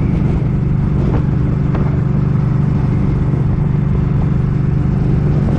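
Suzuki Boulevard M50's V-twin engine running steadily at cruising speed, heard from the moving motorcycle, with wind rushing over the microphone.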